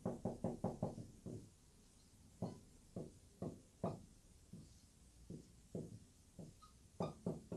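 Marker pen writing on a whiteboard, heard faintly as a series of short strokes and taps: a quick run in the first second and a half, a brief pause, then strokes about every half second.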